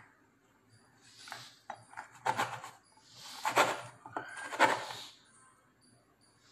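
Stainless steel tumbler pressed through a slice of bread and twisted, its rim scraping on a plastic chopping board in a few short bursts as it cuts out a round.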